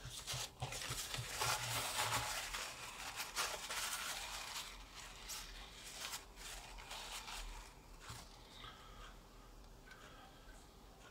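Paper towel rustling and crinkling as it is handled, busiest in the first half and dying down after about eight seconds.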